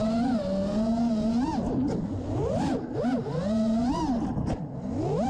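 FPV quadcopter's brushless motors whining, the pitch holding steady, then swooping sharply up and down over and over as the throttle is punched and cut.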